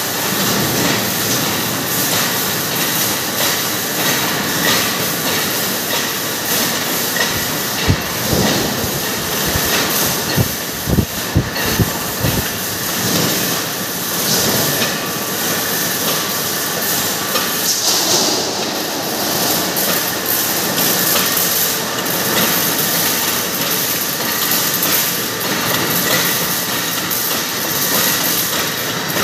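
Steel strip mill line running, winding thin cold-rolled steel strip onto a spinning coil: a steady loud mechanical clatter and hiss, with a few sharp metallic knocks about eight seconds in and again around ten to twelve seconds.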